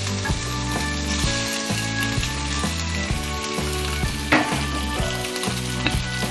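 Cubed potatoes sizzling in hot oil in a cast iron skillet, a steady frying hiss with a sharp click about four seconds in. Soft background music with a changing bass line plays underneath.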